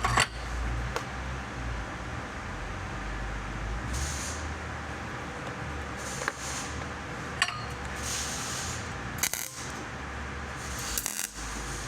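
Scattered sharp metallic clinks and knocks over a steady low machine hum, with a few short bursts of hiss.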